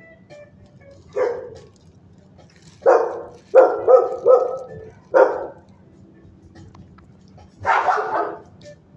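Dog barking in a shelter kennel: single barks spaced a second or two apart, a quick run of three about four seconds in, and a longer, louder bark near the end.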